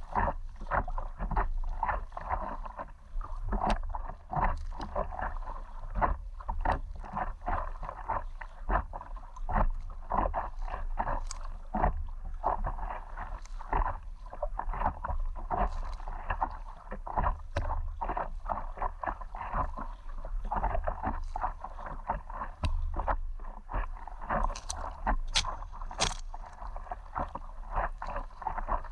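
Water splashing and lapping around an inflatable stand-up paddleboard as it is paddled: a continual run of short, irregular splashes over a low steady rumble.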